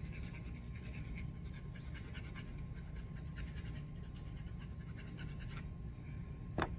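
Nail file scraping rapidly back and forth along the cut edge of a cross-stitch keychain piece, smoothing off the sharp corners. The strokes stop near the end, followed by a single sharp click.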